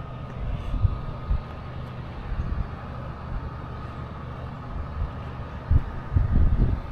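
Low wind rumble buffeting the microphone, with irregular gusts that grow stronger near the end, over a faint steady high tone.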